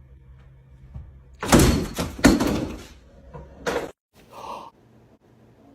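Several loud thuds and bangs in a small room. They cluster between about one and a half and two and a half seconds in, and one more bang comes just before the four-second mark.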